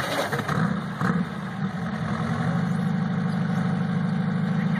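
Buggy engine catching and then running steadily at idle, a low, even hum with a rapid pulse.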